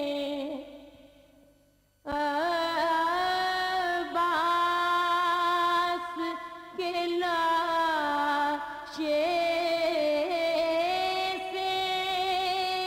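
A woman's solo voice chanting a noha, a Shia lament, in long drawn-out notes that bend slowly in pitch. The voice trails away over the first two seconds and comes back in sharply, then carries on with short pauses for breath.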